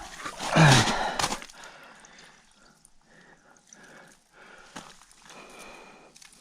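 A short breathy exclamation with a falling pitch, then faint irregular splashing and sloshing of water in an ice-fishing hole as a large northern pike is handled for release.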